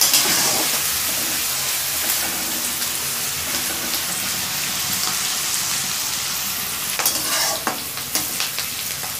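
Sliced onions sizzling in hot oil in a steel kadai, stirred with a metal spatula that scrapes and clicks against the pan, with a few sharper scrapes near the end.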